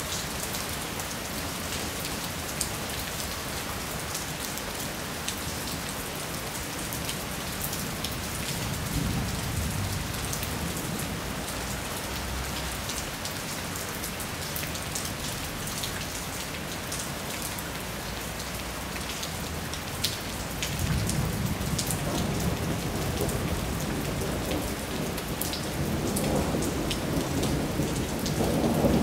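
Steady rain pattering on the street and roofs, with scattered sharp drips close by. Low thunder rumbles about eight seconds in, then again from about twenty seconds, growing louder toward the end.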